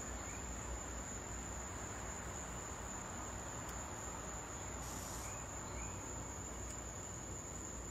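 Steady, high-pitched drone of an insect chorus over outdoor background hiss, with a brief burst of higher hiss about five seconds in.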